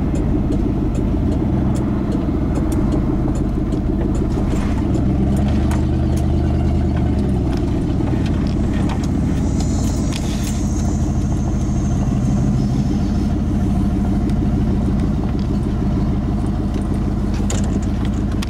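Ford F-150 pickup's engine and road noise heard from inside the cab while driving, a steady low drone that shifts in pitch as the truck slows and turns off the road. A faint high squeal comes in about ten seconds in, lasting a few seconds.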